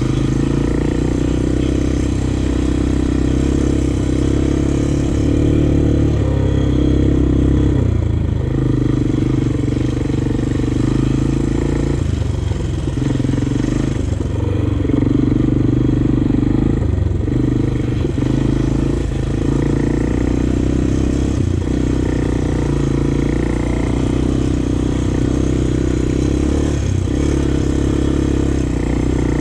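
Honda 400X sport quad's single-cylinder four-stroke engine running under way, its pitch dipping and recovering several times.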